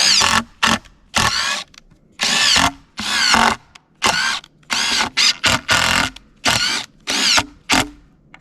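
Power drill driving long wood screws through a 2x8 board into a black walnut log. It runs in a string of short trigger pulls, each a brief whine that rises in pitch as the motor spins up and then cuts off.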